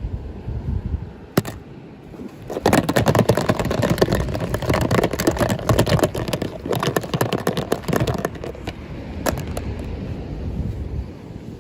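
Packaging being handled: one sharp click, then several seconds of dense, rapid crackling and rustling, like plastic wrap or a blister pack being crumpled and pulled open.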